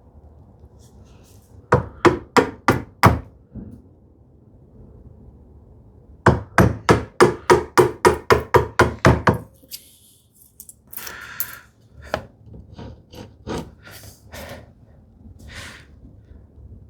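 Mallet striking a chisel to chop through wood while trimming a small wooden turn button: five sharp strikes about two seconds in, then a faster run of about fourteen strikes, roughly four a second, from about six to nine seconds in. Quieter scraping and light knocks follow.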